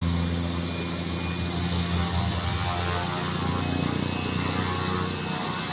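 Air Tractor AT-502B crop duster's Pratt & Whitney PT6A turboprop running as the plane taxis and turns. A steady turbine whine sits over the low drone of the propeller.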